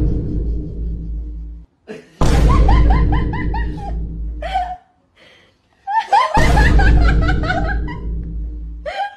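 Laughter in quick runs of about four 'ha's a second over a loud, deep booming bass, heard in bursts that cut in and stop suddenly, twice with the laughing plain: a comic laugh sound effect.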